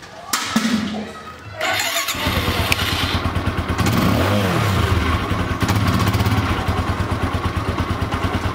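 Motorcycle single-cylinder engine started after a fingerprint-sensor unlock: a couple of clicks, then the engine catches about two seconds in, revs briefly around four seconds in, and settles into a steady, pulsing idle.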